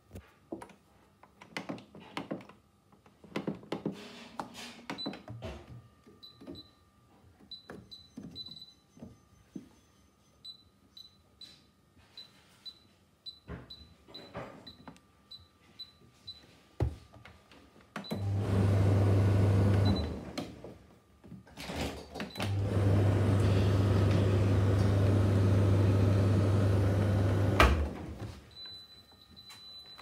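Beko tumble dryer controls: button clicks and a string of short electronic beeps as the program dial is turned. About midway the dryer runs with a loud steady hum, first briefly, then again for about five seconds, cutting off with a click. A held beep follows near the end.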